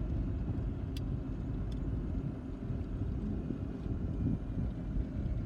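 A steady low rumble of a vehicle, with two faint ticks about a second and just under two seconds in.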